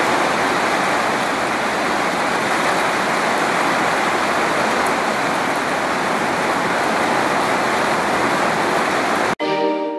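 Steady rain falling, a dense even hiss. It cuts off abruptly about nine seconds in and gives way to soft piano music.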